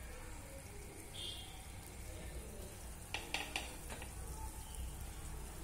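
Bread gulab jamun dough balls deep-frying in hot oil with a faint, steady sizzle. A quick run of three or four sharp clicks comes about three seconds in.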